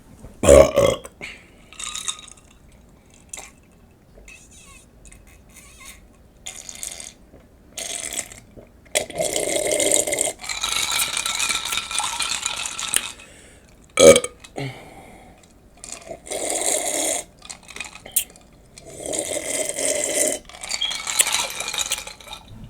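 A person burping loudly after a big meal, twice: about half a second in and again near the middle. Between the burps come longer stretches of breathy noise.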